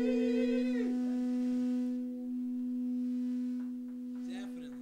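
The band's closing note: a sung note with vibrato ends about a second in, while one steady held instrument tone rings on and slowly fades. Voices start up faintly near the end.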